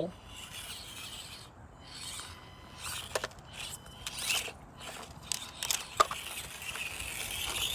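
Axial SCX24 1/24 micro rock crawler's brushed motor and gears whirring in short, irregular bursts as it crawls, with small clicks and scrapes from the tyres and chassis on the rock.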